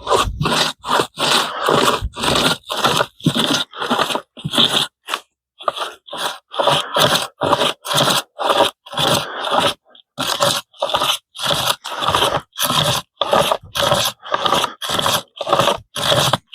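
Pocket chainsaw, a toothed chain with hand straps, being pulled back and forth in a cut: a steady run of rasping strokes, about two a second. The chain is meeting a good bit of resistance.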